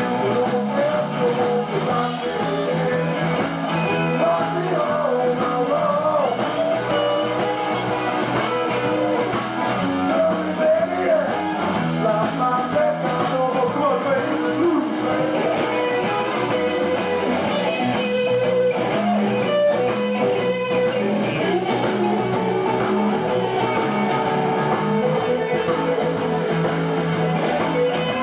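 Live electric blues band playing an instrumental passage: electric guitar over a steady drum beat, with a harmonica held long notes and bends.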